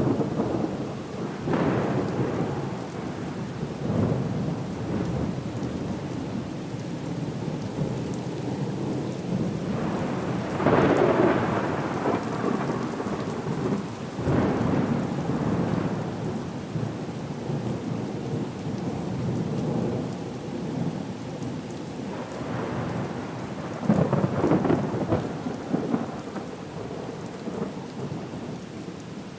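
Thunderstorm soundscape: steady rain with repeated rolling rumbles that swell and fade every few seconds, the strongest about a third of the way in and again near the end.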